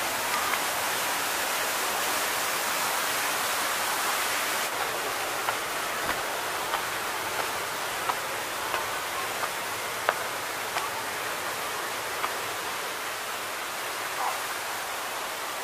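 Steady rush of a waterfall, with light footsteps on stone steps ticking about every two-thirds of a second.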